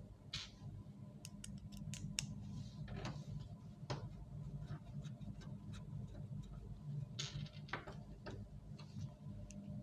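Irregular small clicks and taps from hand work on a laser printer's parts, with a few short scraping sounds, over a steady low hum.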